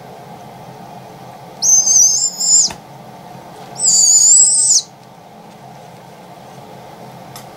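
Baby barred owl giving two harsh, high screeching calls about a second long each, a second apart: the food-begging call of an owlet being hand-fed. A short click follows the first call.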